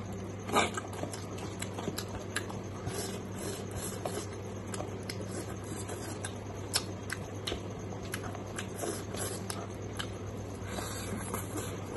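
Close-miked mouth sounds of someone eating rice by hand: irregular wet chewing clicks and lip smacks, the loudest about half a second in, over a steady low hum.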